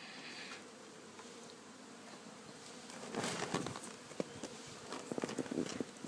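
Honey bee swarm humming steadily in a cardboard box. About halfway through, louder rustling and a run of knocks and clicks come in as the cardboard box is handled.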